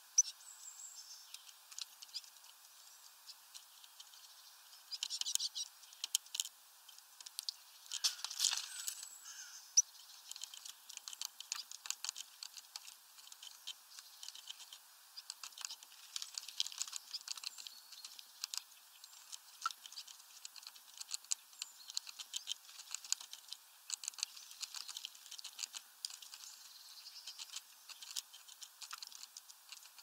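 A Eurasian blue tit bathing in a shallow plastic tub of water: bursts of splashing from its beating wings, with droplets pattering and ticking on the plastic between bursts.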